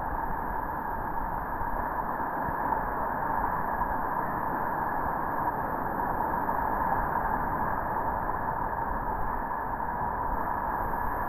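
Steady rushing roar of Merced River whitewater rapids, a dense even noise with its highs muffled.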